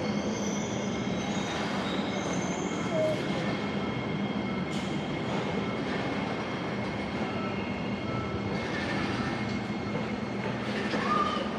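Steady running noise and hum of a Singapore MRT train heard from inside the carriage, with thin high wheel squeals now and then.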